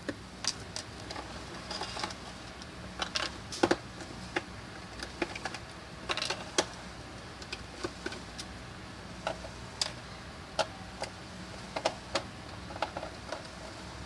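Irregular small clicks and taps from hand work on a laptop's plastic underside, with a screwdriver and small screws being handled.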